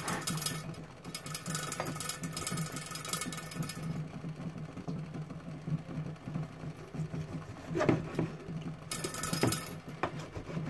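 Kitchen knife slicing through raw chicken breast on a plastic chopping board, with a few sharp knocks of the blade against the board near the end. A steady low hum runs underneath.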